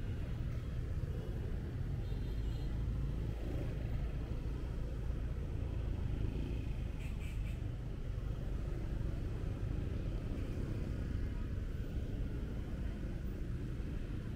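Steady low rumble of a motorbike ride through city street traffic: engine, road and wind noise, with the motorbikes and cars around it.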